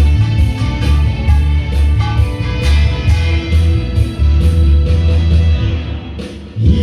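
Instrumental stretch of a song's backing track: a steady beat of bass and drums under guitar, with no singing. The music eases briefly near the end.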